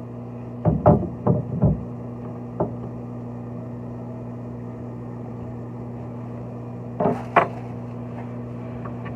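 Steady low hum with a cluster of four sharp knocks about a second in, one more soon after, and two more near the end: tools and parts being handled during work on a shower valve.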